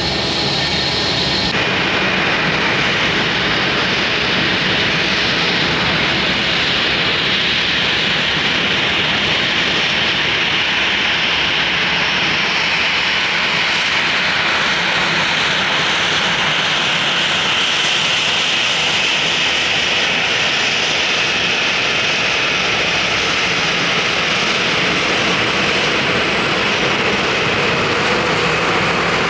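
Jet airliner engines running loudly close by: a steady rush with a high whine that sinks a little in pitch midway and climbs again near the end.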